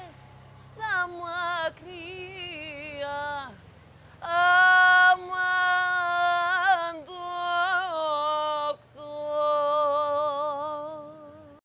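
A woman's jazz voice singing long wordless notes with wide vibrato, in several phrases with slides between pitches; the last note tapers off near the end.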